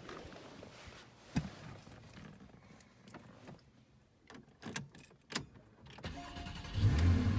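A few clicks and knocks from inside the car, then about six seconds in the 2014 Porsche 911 Carrera S's naturally aspirated 3.8-litre flat-six is cranked and starts. It is loudest as it catches and then runs on steadily at idle.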